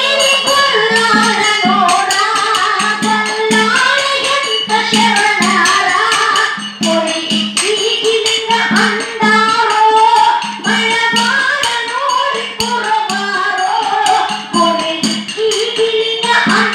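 Live folk singing with microphones, over a hand-played barrel drum keeping a steady beat about twice a second, with sharp jingling percussion strokes on top.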